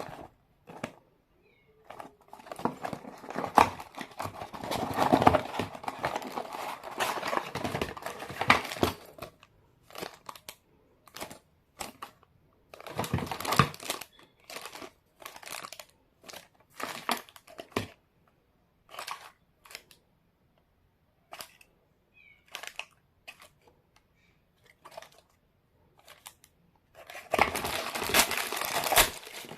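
Toy packaging being handled and opened: plastic and cardboard crinkling and tearing in several spells, with scattered clicks and short quiet gaps between them.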